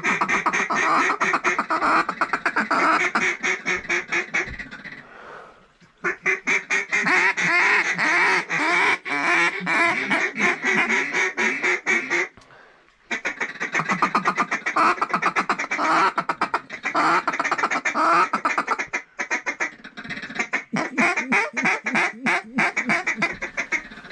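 Rapid mallard quacking and feeding chatter in long continuous runs, breaking off briefly twice, about five and about twelve seconds in.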